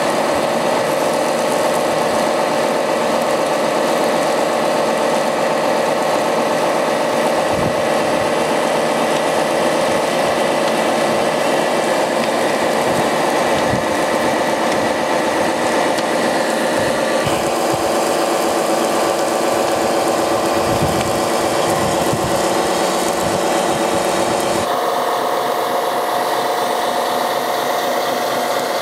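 Radio-controlled model fire truck's pump running steadily as its roof monitor sprays foam: a continuous mechanical whine over the hiss of the spray. The whine changes abruptly near the end as another model fire truck's pump takes over.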